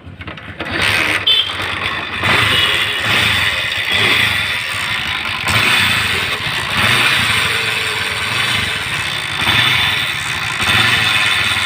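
Mahindra Centuro Rockstar motorcycle's single-cylinder engine running while the kick-starter is worked, with an abnormal noise from the kick-start mechanism swelling about every one and a half seconds. The owner traces the noise to a broken piece stuck inside the kicker.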